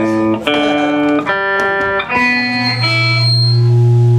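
Live band music led by electric guitar: a run of sustained chords changing every half second to a second, with a low note held from about three seconds in.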